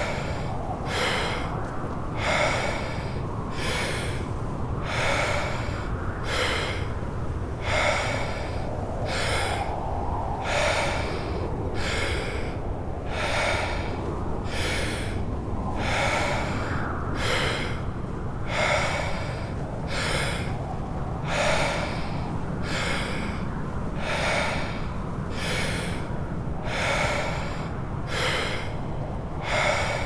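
Deep rhythmic Wim Hof power breathing: a full breath in followed by a released breath out, repeating about once every 2.7 seconds, about eleven breaths. Underneath runs a steady low rumble of snowstorm wind.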